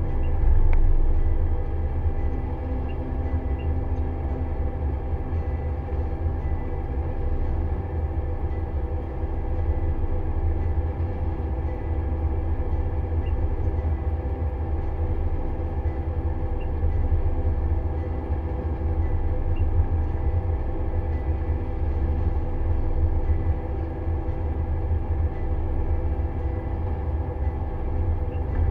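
Pellenc Optimum 890 self-propelled grape harvester running steadily while harvesting along a vine row, heard from inside its cab: a deep rumble with a steady hum of several tones above it.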